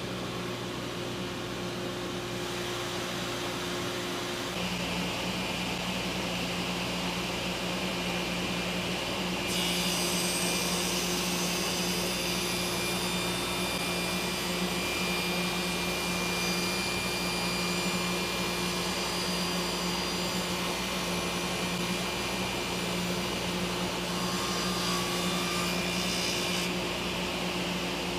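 Table saw running steadily, with its overhead dust-collection hood drawing air. From about a third of the way in, the blade cuts through a wooden template board with a higher hiss. The hiss stops shortly before the end as the saw runs free again.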